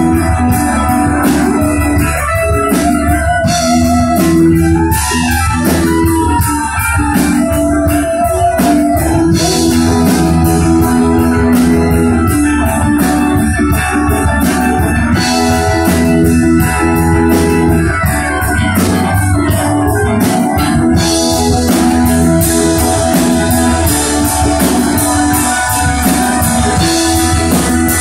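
Live progressive rock band playing loud through a club PA: electric guitar and bass over sustained organ-like keyboard chords, with steady drum and cymbal hits.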